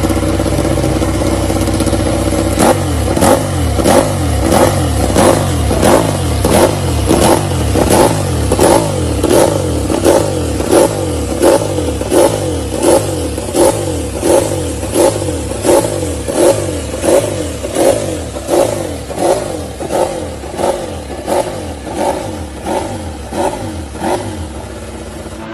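Ducati Desmosedici GP21 MotoGP bike's 1000 cc V4 engine, running steadily at first and then, from about two and a half seconds in, revving up and down in a quick regular rhythm, about three surges every two seconds.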